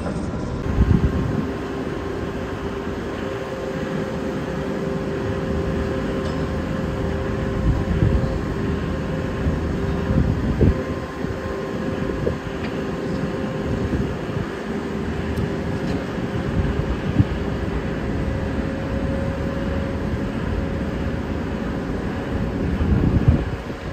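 Construction machinery running steadily: the low rumble of crane and heavy-equipment engines with a steady high-pitched whine over it, and a few low thumps.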